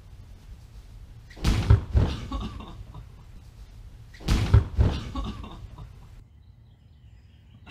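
An inflatable bubble soccer ball with a person inside slamming into a wheeled plastic garbage can weighted with heavy stuff and knocking it over. Each impact is a loud double thump followed by a short fading clatter, heard twice about three seconds apart.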